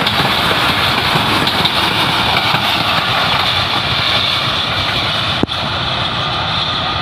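Passenger coaches of a Pakistan Railways express train running past close by: a loud, steady rumble and rattle of steel wheels on the rails. The sound drops out sharply for a moment about five and a half seconds in.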